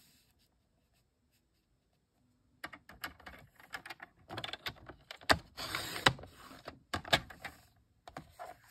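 Paper trimmer's cutting carriage run along its rail to slice a strip off cardstock, starting a few seconds in: a series of sharp clicks and taps with a brief scraping hiss of the cut. The cutting blade is dull and leaves the card edge fuzzy.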